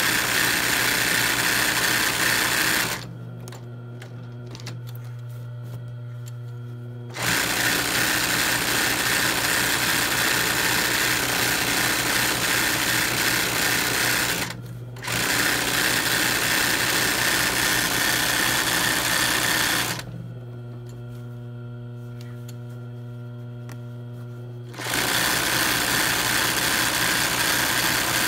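ROYAL sewing machine stitching machine embroidery in runs. It sews for a few seconds, stops, and starts again: four runs, with two pauses of about four seconds and one brief one. During the pauses only the steady hum of its motor is left.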